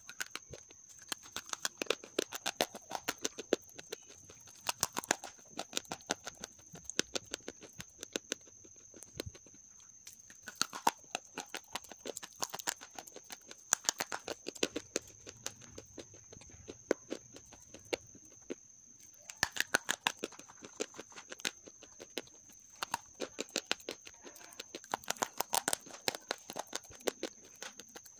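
Half-roasted grey clay being bitten and chewed close to the microphone: clusters of sharp, crisp crunches, several a second, with short pauses between bites.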